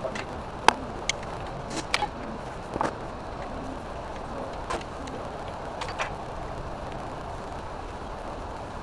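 Hand tools clinking and knocking against metal engine parts during an engine teardown. Scattered sharp clicks come over the first six seconds, the loudest just under a second in, over steady background noise.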